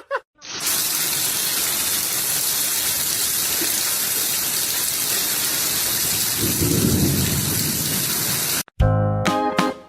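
Steady, loud hiss of heavy rain, with a low rumble about six to seven and a half seconds in. It cuts off suddenly near the end, and plucked-string music with steady notes starts.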